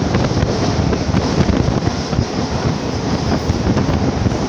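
Mumbai suburban EMU local train running through a tunnel, heard from its open doorway: a loud, steady rush of wind on the microphone mixed with the rumble of the wheels on the rails.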